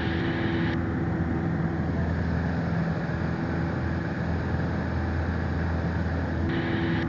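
Piper Warrior's four-cylinder Lycoming engine and propeller droning steadily in flight, heard inside the cabin. A brighter hiss drops away about a second in and comes back near the end.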